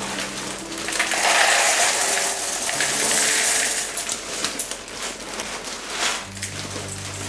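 Corn flakes poured from a plastic bag into a bowl: a dense crackling rustle of flakes tumbling in for a few seconds from about a second in, then scattered light clicks and the rustle of the bag.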